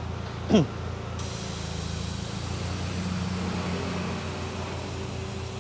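Air suspension venting: the valves release air from the air springs with a steady hiss starting about a second in, lowering the car to normal ride height, while the onboard air compressor hums steadily underneath. A brief falling tone sounds about half a second in.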